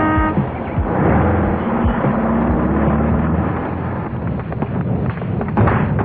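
A car with its engine running and its horn tooting. A sudden loud burst comes near the end.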